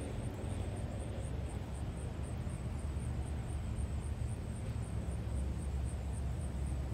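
Steady low outdoor rumble with a faint even hiss above it, and no distinct animal sounds.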